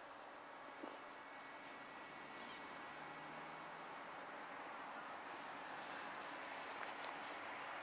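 Small birds giving brief high chirps, one about every second and a half, over faint steady outdoor background noise that slowly grows louder toward the end.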